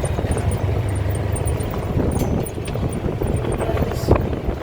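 A steady low rumble, like a vehicle's running noise, with a single sharp knock about four seconds in.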